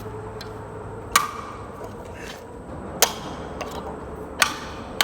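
Pliers striking a metal can of corn to punch it open: four sharp metallic hits with a short ring, a second or two apart, the last at the very end.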